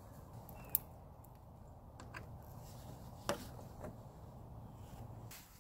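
A few faint metallic clicks and taps as the negative battery cable clamp is worked loose and lifted off its terminal post. A sharp click comes just under a second in and the strongest about three seconds in, over a low steady background hum.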